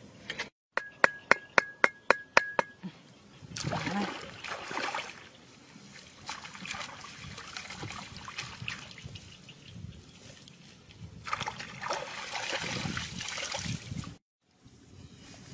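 Shallow muddy water splashing and sloshing as hands work in it and pull out and pile clumps of wet grass. Near the start there is a quick run of about eight sharp clicks over a steady high tone.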